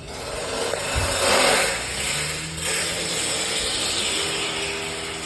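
Loud mechanical noise of renovation work, a power tool running. It cuts in suddenly, swells about a second in and then holds fairly steady.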